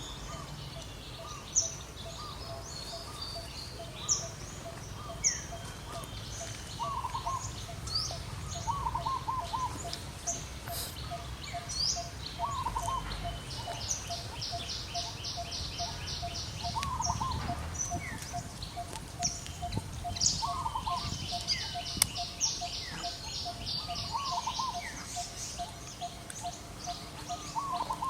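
Outdoor ambience of several birds calling: short high chirps, fast trills and a repeated two-part call, over a steady run of short notes at about two or three a second.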